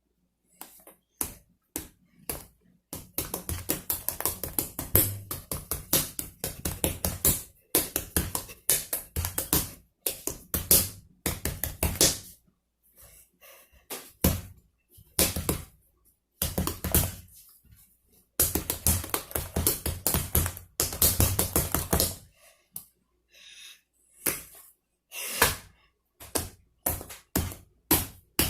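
Slime being squeezed and kneaded by hand, giving rapid runs of wet clicks and pops with short pauses between them. The clicking thins out to scattered pops near the end.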